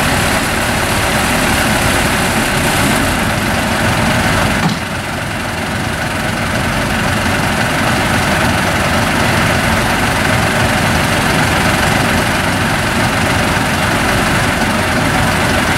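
Engine of a WWII American tank destroyer idling steadily, with a slight dip in level about five seconds in.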